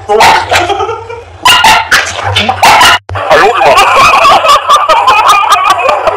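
Small dogs barking and yipping in sharp, separate bursts for about three seconds. Then the sound cuts off abruptly and gives way to a busier mix of voices and giggling.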